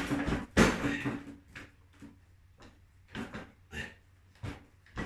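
Knocks and clunks of hand work on an engine part that is stuck: two loud knocks near the start, then quieter separate knocks spaced about half a second to a second apart.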